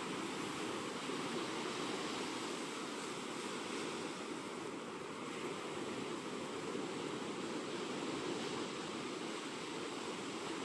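Sea surf washing on a beach, a steady rushing of waves.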